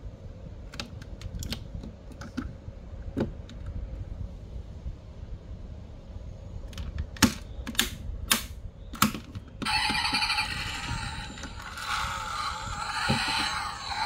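Small clicks and snaps of a 1:24 diecast model car's opening doors being worked and pushed shut, with a quick run of sharper clicks around eight seconds in. About ten seconds in, a thin, tinny electronic sound starts playing, like the model's built-in sound module through its tiny speaker.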